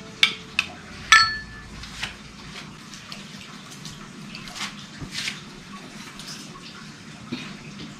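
Metal spoon stirring a creamy mixture in a ceramic bowl, clinking against the bowl a few times in the first two seconds; the loudest clink, about a second in, rings briefly. After that come softer scattered knocks and scrapes of kitchen utensils being handled and set down on the table.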